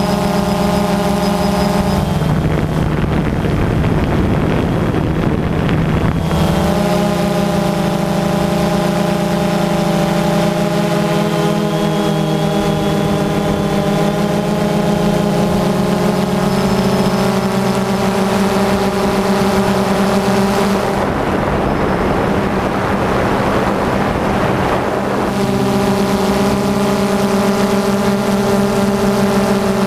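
DJI Phantom 2 quadcopter's electric motors and propellers humming steadily, heard through the GoPro mounted beneath it. Twice the pitches waver for a few seconds under a rush of wind noise, then settle again.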